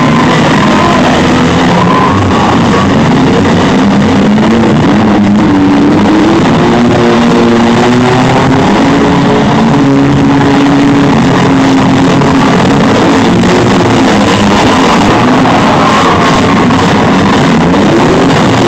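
Demolition derby minivans, trucks and SUVs with engines running and revving as they push and ram one another, mixed with rock music, all loud and steady, with pitches that hold and slide up and down.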